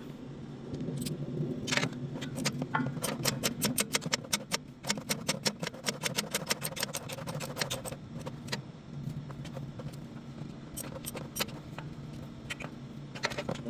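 Metal hand tools clicking and clinking. A fast, even run of clicks, about five or six a second, fills the middle stretch, with scattered single clinks before and after, over a steady low hum.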